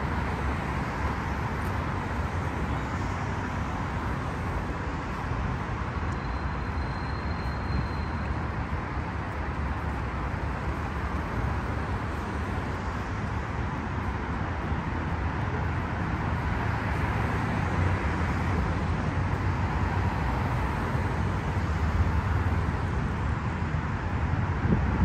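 Steady traffic noise from a busy multi-lane highway: passing cars and their tyres blend into one continuous hum, growing a little louder near the end.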